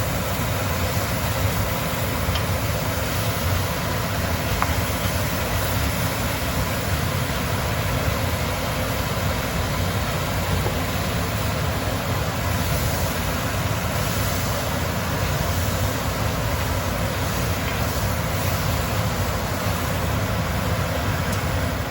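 Stove exhaust fan running steadily over chunks of beef sizzling and browning in a hot pot.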